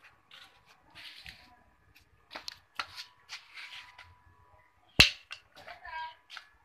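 Sandals scuffing and shuffling on a concrete floor, with rustling scuffs throughout. There is one sharp, loud click about five seconds in, then a brief wavering whine.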